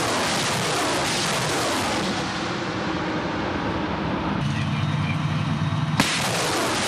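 Uragan multiple rocket launcher firing a salvo of 220 mm rockets: a loud, continuous roar of rocket motors. A sharp bang about six seconds in, as another launch begins.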